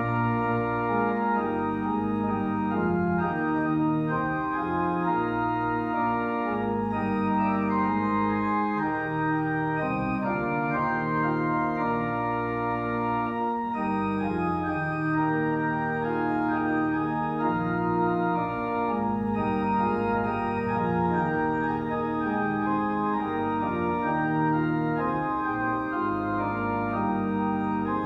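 Organ playing slow, held chords, the notes changing every second or two at an even level.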